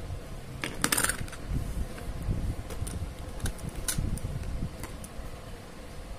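Stacked bangles clinking and clicking against each other as they are handled, with a quick cluster of clinks about a second in and scattered single clicks after.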